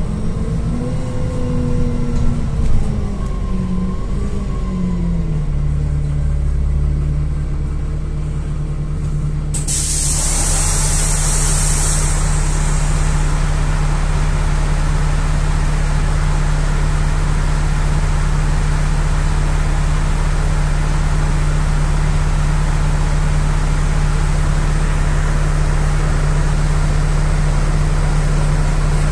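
NefAZ-5299-40-52 city bus heard from inside the cabin: the engine note falls over the first few seconds as the bus slows, then settles to a steady idle. About ten seconds in, a loud hiss of compressed air from the bus's pneumatics lasts a couple of seconds, and the engine idles on.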